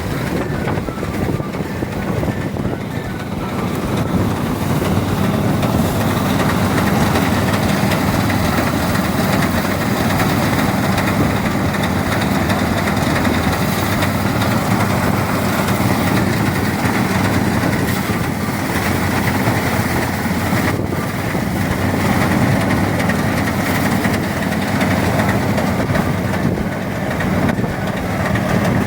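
Motorized rice thresher running steadily with its engine going, a little louder from about four seconds in.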